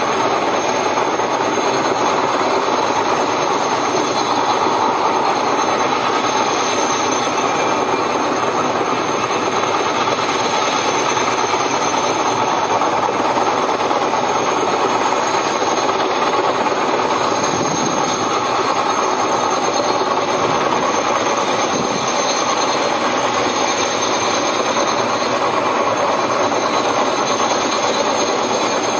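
Sikorsky S-64 Skycrane heavy-lift helicopter hovering: a steady rush of engine and rotor noise with a thin, high, even whine above it.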